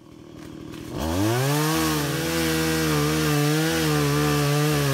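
Small two-stroke chainsaw revving up about a second in, then running at high speed, its pitch dipping and wavering.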